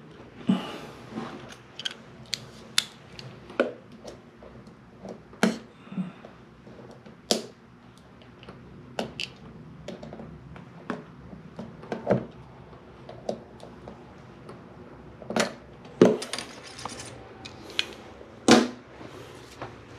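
Irregular clicks, clinks and knocks of hand tools and metal parts being handled while a shower valve's trim is worked on, with two louder knocks near the end.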